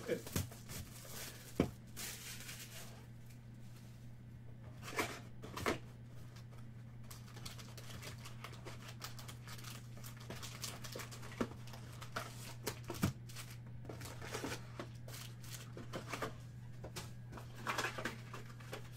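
Cardboard trading-card hobby box being opened and its foil card packs pulled out and stacked: scattered crinkles, rustles and light taps over a steady low hum.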